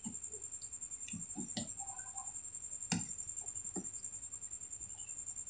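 A metal ladle knocking a few times against an aluminium cooking pot, the sharpest knock about three seconds in. A steady, high-pitched, fast-pulsing tone runs underneath.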